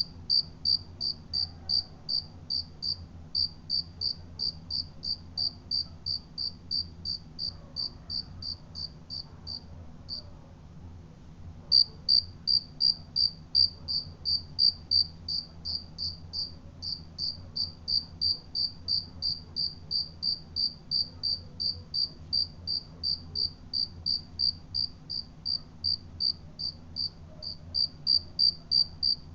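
A cricket chirping in a steady, even rhythm of about three high-pitched chirps a second, breaking off for a second or two about ten seconds in, then resuming.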